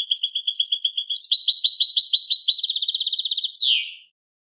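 European goldfinch singing one phrase of quick, high repeated notes, about eight a second. The phrase speeds up into a fast trill and ends on a falling note about four seconds in, then stops.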